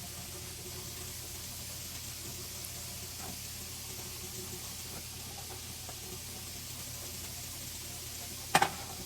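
Faint steady kitchen hiss over a low hum, with one short sharp knock near the end.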